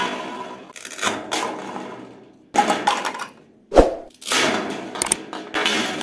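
Plastic toy fruit pieces rolling and sliding down a grooved plastic board and clattering into a plastic bowl of other toy pieces, several in turn. There is one sharp knock just before four seconds in.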